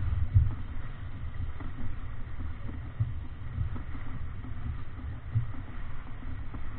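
Wind buffeting the camera microphone as a low, gusty rumble, over the rush and splash of water along the hull of a Davidson 36 sailboat heeled over and sailing upwind through chop.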